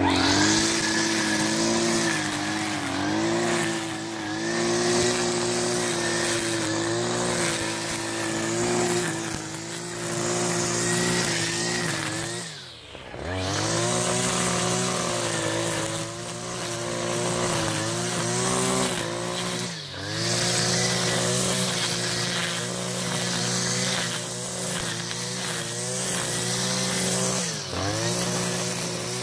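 Kawasaki TJ 35 E two-stroke brush cutter engine running at high revs while cutting weeds, with the throttle eased off several times, the pitch dropping and climbing back, most deeply about halfway through.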